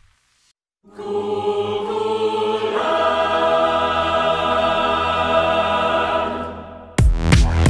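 Background music: after about a second of silence, held chords swell in, shift to a new chord near three seconds in and fade away. Electronic dance music cuts in loudly near the end.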